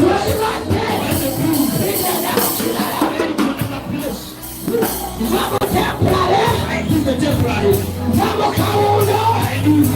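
Music with singing voices over sustained low notes, with a short dip in loudness about four seconds in.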